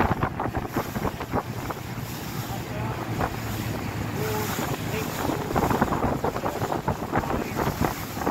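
Wind buffeting the microphone of a camera aboard a moving boat, in irregular gusts over the boat's steady low hum and the wash of water.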